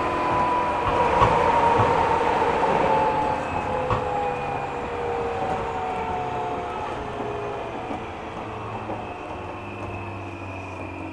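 Interior running sound of a JR 205-series electric commuter train slowing down: its motor and gear whine falls steadily in pitch as the running noise fades.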